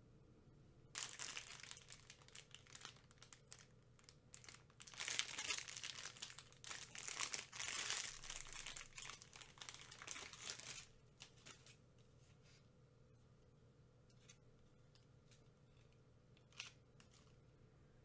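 Plastic candy packaging crinkling and tearing as a bag of chili-coated gummy strings is opened and its clear plastic tray is handled. There is a short burst about a second in, then a dense crinkly stretch from about 5 to 11 seconds, followed by only a few soft taps and one small click near the end.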